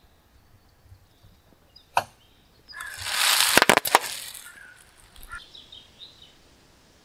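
Car tyre rolling over and crushing a plastic-wrapped packet: a single sharp snap about two seconds in, then about a second and a half of loud crackling plastic with several sharp cracks in the middle, dying away in a few small ticks.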